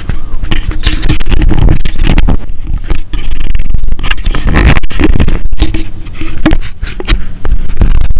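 Loud handling noise on a GoPro action camera: fingers rubbing, gripping and knocking against the camera body right at its microphone, with many sharp knocks and scrapes.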